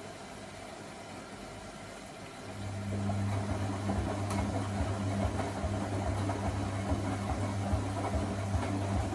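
Electra Electronic front-loading washing machine's drum motor starting about two and a half seconds in and turning the drum with a steady hum, the wet towels and wash water sloshing inside during a cotton 60° wash.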